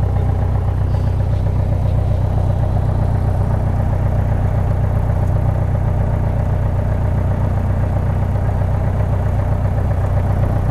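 Piper Arrow's piston engine and propeller running steadily at low power while taxiing, heard from inside the cockpit as an even low drone.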